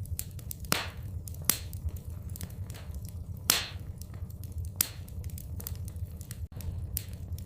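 Wood fire crackling in a fireplace: irregular sharp pops and snaps over a steady low rumble, with one louder pop about halfway through.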